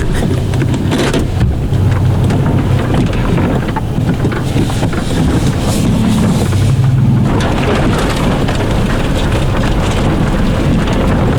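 First-generation Toyota Sequoia's 4.7-litre V8 running as the SUV drives slowly along a snowy forest dirt road, a steady low rumble with many small crackles and knocks from the tyres and body over snow and rocks.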